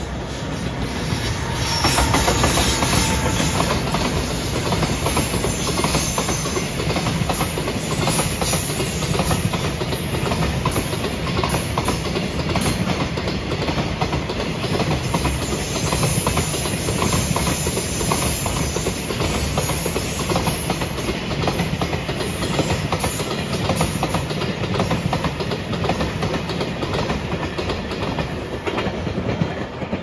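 Container freight train hauled by an electric locomotive passing close by, its wagon wheels clattering steadily over the rail joints. The sound swells over the first two seconds and drops away at the very end as the last wagons go by.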